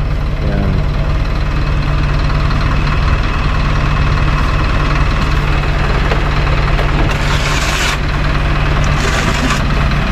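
Tipper truck's diesel engine running steadily at idle. A short burst of rougher noise comes about seven seconds in.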